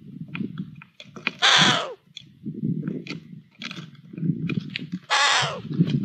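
Long-eared owlets giving two harsh hissing begging calls, about a second and a half in and again near five seconds, each trailing down at the end: they are begging for food the adult has brought to the nest box. Between and under the calls come a low scuffling and rustling and a few sharp clicks as the birds move about in the wooden box.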